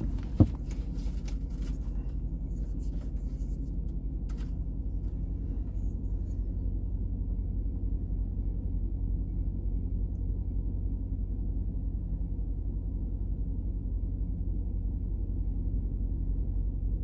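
Steady low rumble throughout, with a sharp click about half a second in and a few light clicks and taps over the next few seconds.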